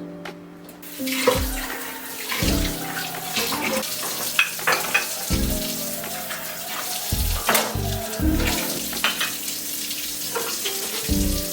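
Water running steadily from a tap into a sink, starting about a second in, over background music.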